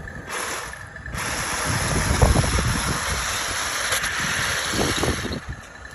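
A 1/18-scale T90 RC tank driving, its electric drive and metal tracks running with a steady grinding hiss over a low, uneven rumble. The hiss cuts out briefly twice in the first second.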